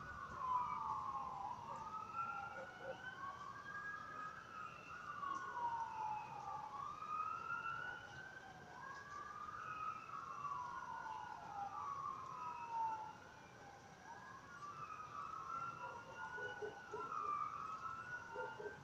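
Distant emergency vehicle siren in wail mode, its pitch rising and falling about every two seconds, with overlapping sweeps crossing one another.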